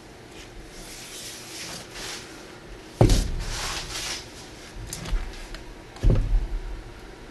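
Handling noise from a gloved hand smearing paint along the sides of a canvas: rustling and rubbing, with two dull thumps about three and six seconds in.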